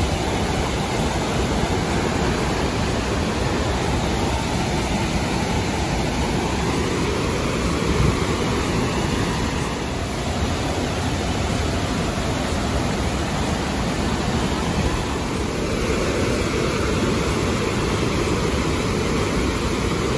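Steady roar of Burney Falls, the waterfall pouring into its pool.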